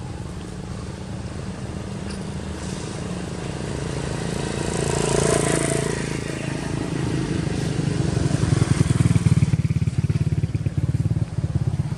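A motorcycle engine running with a steady, rapid low pulsing that grows louder over the seconds and is loudest near the end. A rushing swell rises and fades about five seconds in.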